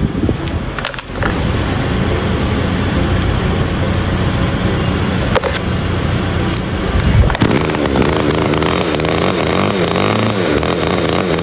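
Small two-stroke chainsaw engine running after a repair, steady at first, then revved up and down repeatedly from about halfway through.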